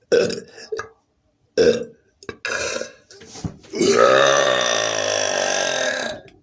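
A man belching loudly after drinking Coca-Cola: a few short belches in the first three seconds, then one long, deep belch of about two and a half seconds, held at a steady pitch.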